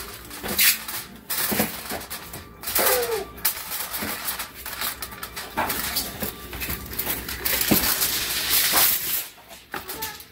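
Heavy-duty aluminium foil crinkling and crackling irregularly as it is pressed and folded by hand around a baking pan. A short cry falls in pitch about three seconds in.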